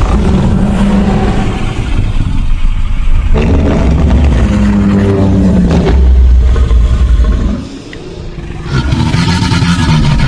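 Monster sound effects: deep, loud growls and roars layered from stock animal and dinosaur sounds, with a heavy rumble beneath. The growling breaks off briefly about three-quarters through, then starts again.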